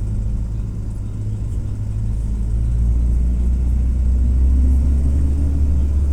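Cummins ISF 3.8 four-cylinder turbo-diesel of a Volare W9C minibus running under way, heard from on board as a deep, steady rumble. The rumble gets louder and deeper about halfway in.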